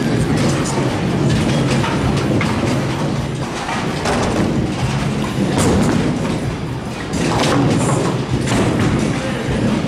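Bowling alley din: a Brunswick GS-NXT pinsetter cycles and respots a single pin, while balls rumble down the lanes and pins knock and clatter, over music playing.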